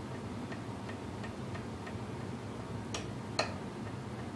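Light, evenly spaced clicks, about three a second, then two sharper clicks about half a second apart near the end, the second the loudest: hands working clamps and a straight edge on a guitar neck clamped in a jig.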